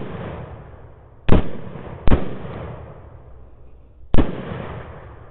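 .308 AR-10 rifle shots: three sharp reports, two about a second in and under a second apart, a third about four seconds in, each trailing off over about a second. The shots are fired at hogs, following on from one just before.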